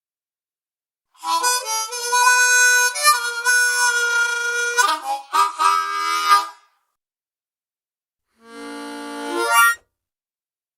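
Harmonica playing a riff of chords and notes for about five seconds, then, after a pause, a single held chord that swells louder and cuts off.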